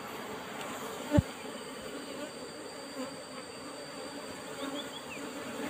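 Asian honey bees (Apis cerana) buzzing steadily around their broken-open nest as its comb is cut out. One short knock about a second in.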